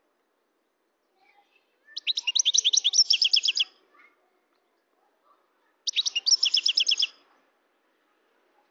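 European goldfinch singing: two short high-pitched phrases of fast repeated notes, the first about a second and a half long starting two seconds in, the second about a second long near six seconds.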